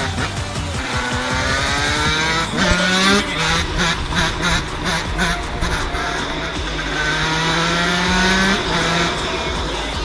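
Yamaha YZ125 two-stroke single-cylinder engine, fitted with an aftermarket expansion chamber and a Pro Circuit R304 silencer, revving hard through the gears. Its pitch climbs and drops at each shift, with a choppy, stuttering stretch in the middle.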